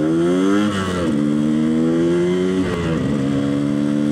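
Yamaha RX-King's two-stroke single-cylinder engine through its stock exhaust, revving up under acceleration, falling off sharply just under a second in, then holding a steady pitch with a short dip near three seconds.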